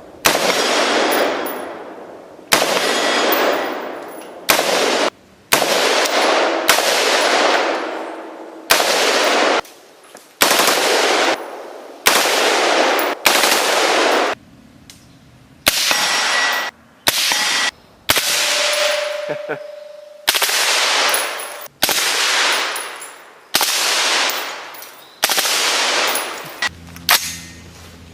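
5.56 mm M16 rifle firing a series of bursts, about fifteen in all. Each burst starts abruptly and fades away in a long echoing tail before the next one begins.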